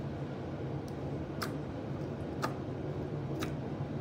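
Thick homemade slime worked by hand, giving three sharp clicking pops about a second apart over a steady low hum.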